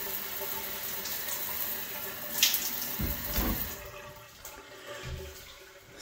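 Handheld shower head spraying water at full flow into a shower, a steady rush that grows quieter after about four seconds, with a short tap a little before halfway. The strong, even flow with other fixtures also open shows good water pressure.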